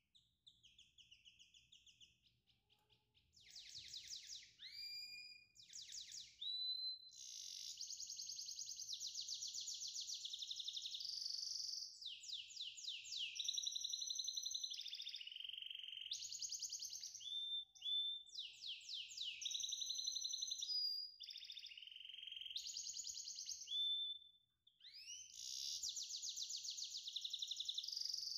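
A songbird singing in long, rapid high-pitched trills broken by sliding whistled notes, phrase after phrase with short pauses.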